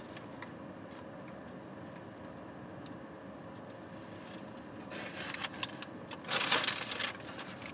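A steady low hum in a car cabin, then crinkling and rustling of a fast-food paper bag or sandwich wrapper in two short bouts, about five seconds in and again a second or so later.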